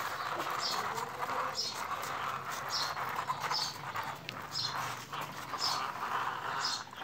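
Plastic wheels of a loaded toy truck rolling across a rough concrete floor, a steady rasp with a short high squeak repeating about once a second.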